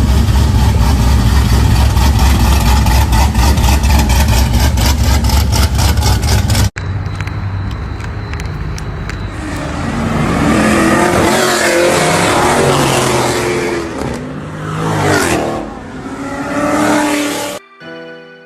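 Loud car engine at high revs that cuts off suddenly about seven seconds in, followed by revving that rises and falls in pitch.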